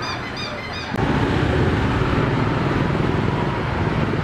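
Street traffic of motorbikes and cars: engine and road noise that jumps suddenly louder about a second in and then runs steadily. Before the jump, a few short high chirps repeat about three times a second over quieter street noise.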